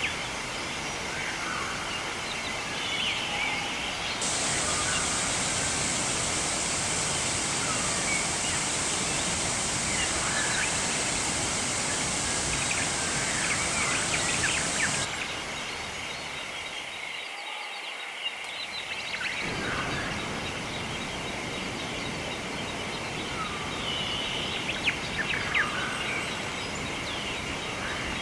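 Nature ambience: a steady rush of flowing water with scattered short bird chirps and a steady insect drone. The rush turns brighter and fuller suddenly about four seconds in and drops back just as suddenly about halfway through.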